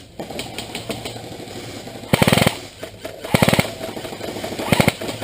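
Airsoft gun firing three short bursts of rapid full-auto shots, the first about two seconds in. Fainter scattered shots sound between the bursts.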